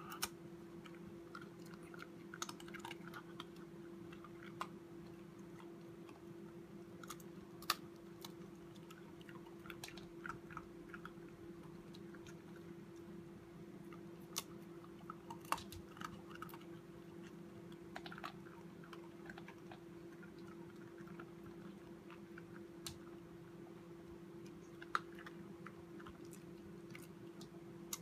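Corgi puppy gnawing and crunching a hard bone-shaped dog biscuit held in a hand: scattered sharp crunches and tooth clicks, a few louder than the rest, over a steady low hum.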